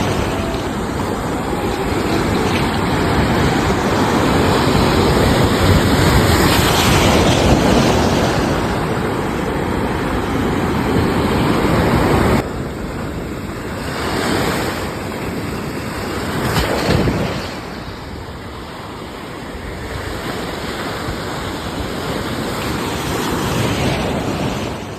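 Sea waves washing onto a shore: a continuous rushing surf. It drops suddenly in level about halfway through, then rises and falls in slow swells as individual waves come in.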